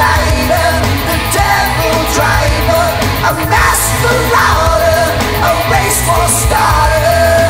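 Rock song: a lead vocal sung hard over a full band, with a steady low bass and recurring cymbal hits.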